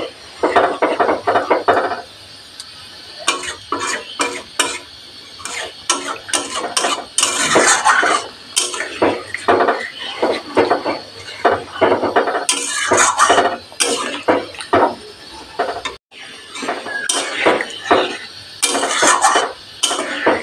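Metal spatula scraping and knocking against a metal kadai while stirring a thick egg and potato curry, in quick, irregular strokes.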